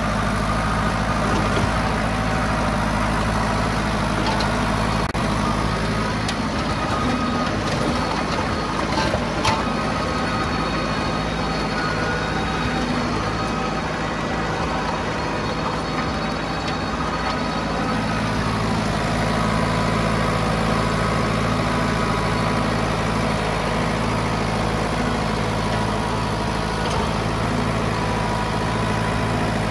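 County 764 tractor's diesel engine running steadily at working revs, heard from the open driver's seat. The low engine note wavers unsteadily for several seconds in the middle before steadying again, with one sharp knock about nine seconds in.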